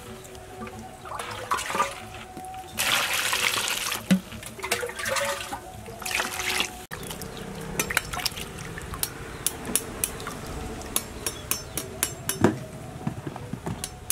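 Water poured into a stainless steel bowl of cut pumpkin and peeled cucumbers in a few rushes. Then hands slosh and rub the vegetables in the water, with many quick splashes and clinks against the bowl.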